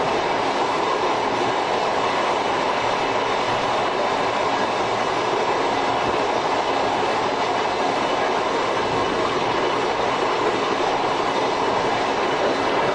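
Tobu 5700 series electric train, an older type with nose-suspended traction motors, running steadily at speed. A continuous rumble of wheels on rail and drive noise is heard from the driver's cab.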